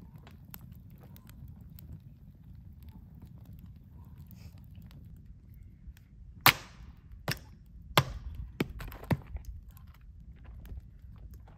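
Axe splitting a firewood log on a wooden chopping stump: a sharp crack about halfway through, a second loud strike about a second and a half later, and a few smaller wooden knocks after it.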